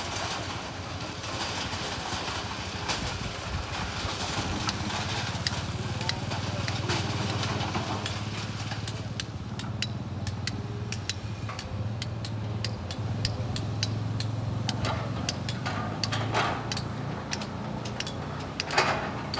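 Hydraulic excavator's diesel engine running, a steady low drone that comes up a few seconds in, with scattered sharp clicks and knocks and a louder burst of clatter near the end.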